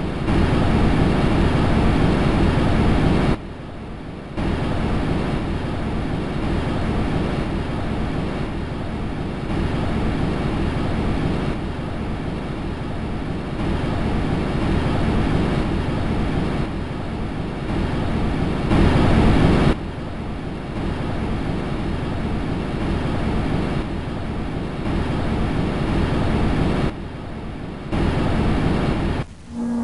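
Space sound made audible from spacecraft data: a dense, noisy rush strongest in the low range. It drops and jumps abruptly in level several times, the way spliced segments of a recording would.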